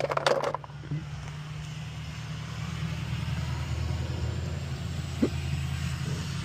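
A motor vehicle's engine running nearby, a steady low hum that grows louder over the first few seconds and then holds. It opens with a short, louder noise.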